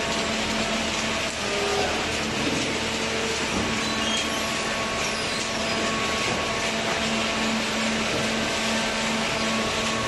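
Cardboard baling line running: the conveyor feeding a horizontal baler makes a steady mechanical drone with a constant hum underneath.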